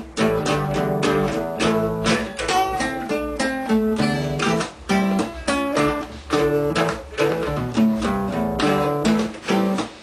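Two classical guitars played together: plucked notes and strums in a quick, even rhythm over bass notes.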